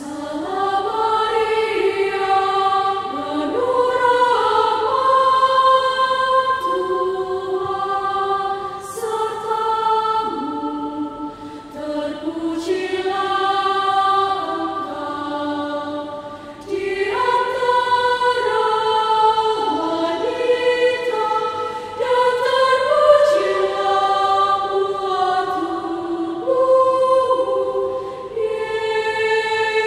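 Choir singing in several parts, held notes moving together in phrases with short breaks between them; the singing begins right at the start.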